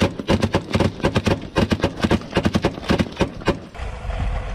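Deck-mounted machine gun on a navy patrol boat firing rapid bursts of shots, several rounds a second with short breaks. The firing stops near the end, leaving the boat's engine and wind noise.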